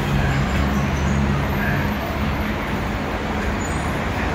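Steady road traffic noise with a low engine hum, unbroken and even throughout.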